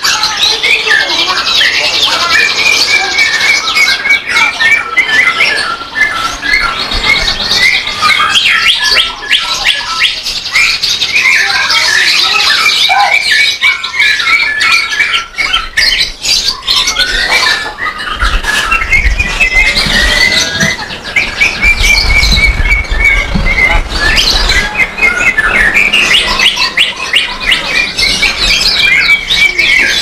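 Several caged songbirds singing at once: a dense, continuous tangle of rapid chirps, whistles and trills. A low rumble runs underneath for a few seconds past the middle.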